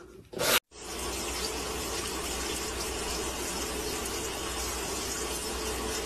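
A short sharp sound at the very start, then a steady hissing, rushing noise with a low hum underneath that runs unchanged.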